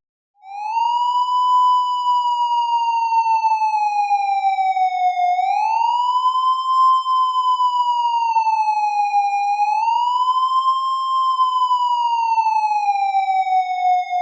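Police siren sounding a slow wail. The pitch rises and falls in long, uneven sweeps, three times, and is falling slowly near the end.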